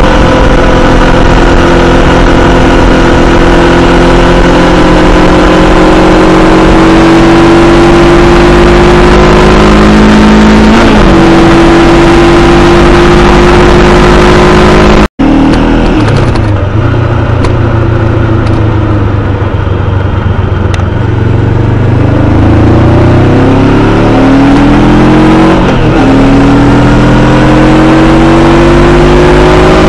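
Honda CBR500R parallel-twin engine under way, pitch climbing steadily with a brief dip at a gear change, over a strong rush of wind. It cuts off suddenly about halfway through; after that the engine pulls up through the gears, its pitch rising and falling at each shift, with less wind.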